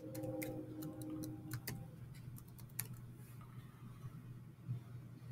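Typing on a Chromebook keyboard: a quick run of key clicks over the first three seconds, then only a low steady hum.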